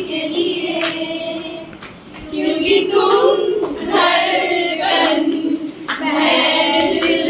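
A group of voices singing a Hindi song together in long held phrases, with scattered hand claps.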